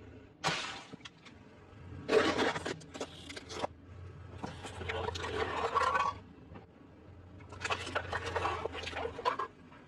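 Eating sounds: four bursts of crinkling and crunching from handling and biting food, over a steady low hum.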